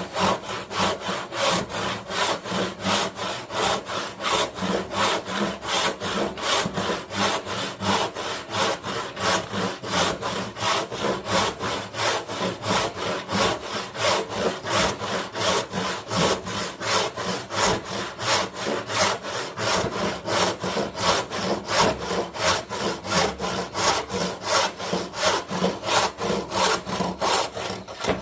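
Hand panel saw cutting through a wooden board along a marked line, in a long, steady, even rhythm of push and pull strokes that stops near the end.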